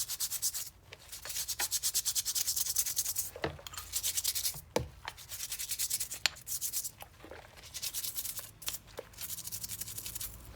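Brisk back-and-forth scrubbing of a grimy steel adjustable wrench as it is cleaned and degreased, a quick rapid rasping rhythm in short runs with brief pauses. A few sharp knocks come in the middle, as the parts are handled.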